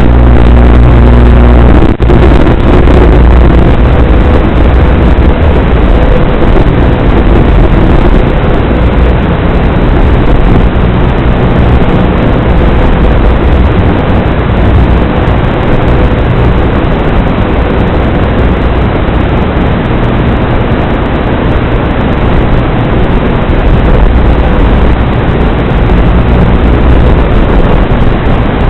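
Ducted micro quadcopter's motors and propellers buzzing steadily and loudly in flight, rising and falling a little with the throttle, mixed with hiss.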